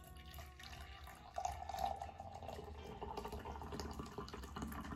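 Coffee poured from a French press into a ceramic mug: a steady stream of liquid splashing into the cup, growing louder about a second and a half in as the pour gets going.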